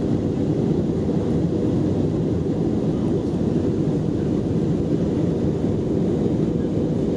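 Steady cabin noise inside an Airbus A319-112 airliner in flight: a low, even roar of airflow and its CFM56 turbofan engines.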